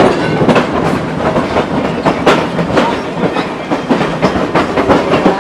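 A moving train heard from aboard: the car's wheels click irregularly over rail joints above a steady running noise.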